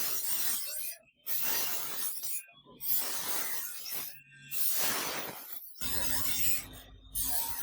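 Metal-on-metal rasping and scraping of knife work in short bursts with brief silent gaps between them, and a machine motor humming underneath from about six seconds in.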